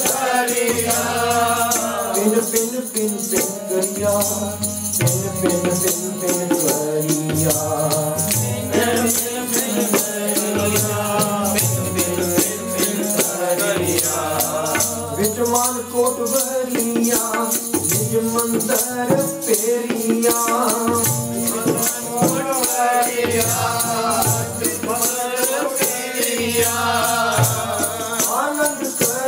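Sikh kirtan: harmonium chords and tabla accompanying a sung hymn, with a steady rhythmic percussive rattle.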